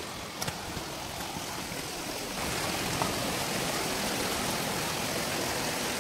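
Creek water running over rocks, a steady rushing hiss that gets louder about two and a half seconds in.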